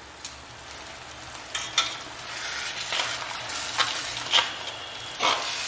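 Onion-tomato masala sizzling as it fries down in chicken stock in a hammered metal kadai over a high gas flame, while a metal spatula stirs and scrapes the pan. The sizzle grows louder about two seconds in, with a scrape of the spatula about once a second.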